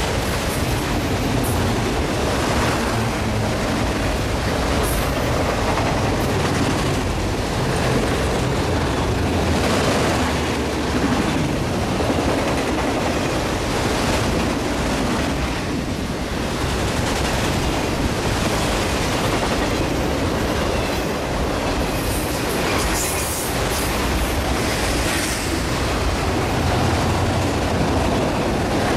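A freight train of tall enclosed autorack cars rolling past at close range: a steady rumble of steel wheels on rail, with irregular clacks as the wheels pass.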